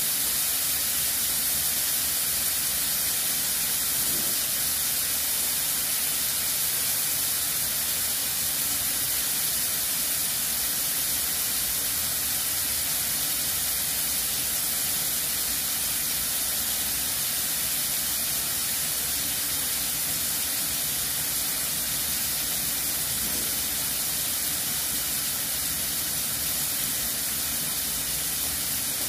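Thin slices of marinated beef and garlic sizzling in hot oil in a frying pan, a steady even hiss as the meat browns.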